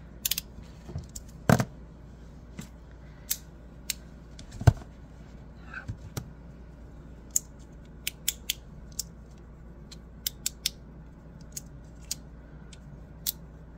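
Scattered light clicks and taps from handling a small magnetic fidget slider and a pocket digital scale on a tabletop, with two louder knocks, the loudest about four and a half seconds in, and a run of light clicks in the second half.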